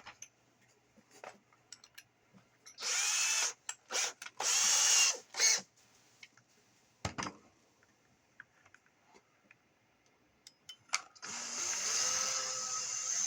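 Power drill boring out a hole in a plastic radio case, stepping up through bit sizes. It runs in two short bursts about three and five seconds in, then runs steadily from about eleven seconds on, with scattered clicks and knocks between.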